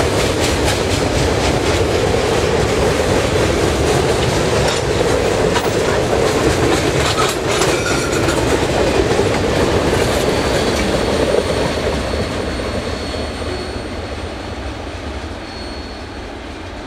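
Freight cars of a Montreal Maine & Atlantic train rolling past, wheels clacking over the rail joints with a heavy rumble. The sound fades steadily over the last few seconds as the end of the train goes by.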